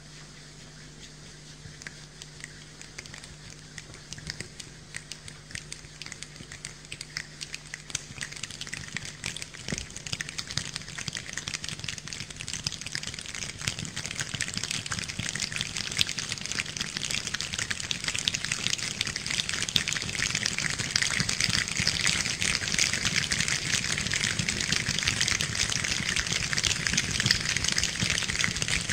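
Rain falling, starting as scattered drops and building steadily into a dense, louder patter of drops.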